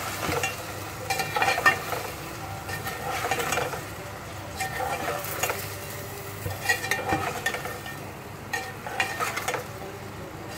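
Taro root pieces sizzling in oil in a steel pot, with a metal spoon scraping and clinking against the pot in short spells every second or two as they are stirred.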